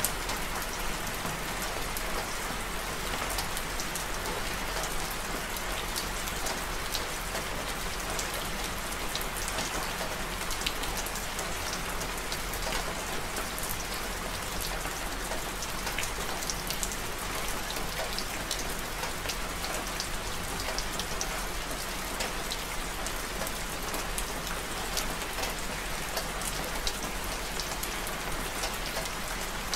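Steady rain falling, with a constant hiss and many individual drops ticking on surfaces close by.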